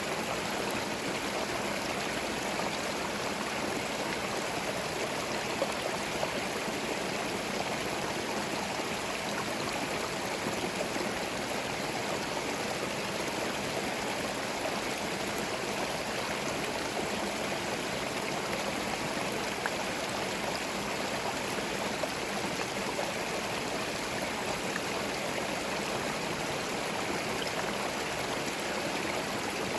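Small forest stream flowing and babbling over stones, a steady, even rush of water.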